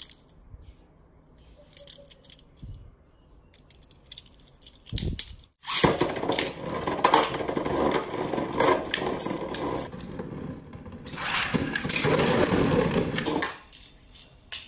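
Two Beyblade Burst tops, Fierce Erebus and Real Saber Ravana, launched into a clear plastic Beyblade stadium about five seconds in, then spinning, scraping and clattering against each other and the stadium walls for about eight seconds before dying down near the end.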